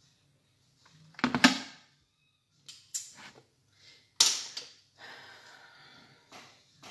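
Several sharp clacks and knocks of small make-up items being handled on a tabletop, the loudest about a second in and another about four seconds in, with a brief rubbing scrape just after five seconds.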